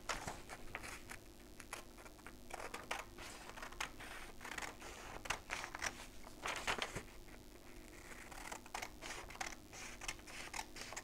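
Scissors cutting paper: a string of irregular snips, with the paper crinkling as the sheet is turned.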